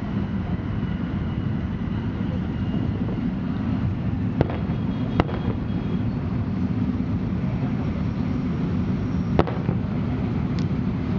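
Fireworks display heard from the crowd: a few sharp bangs of shells launching and bursting, two close together about four and five seconds in and another near nine and a half seconds. Under them runs a steady low rumble with crowd voices.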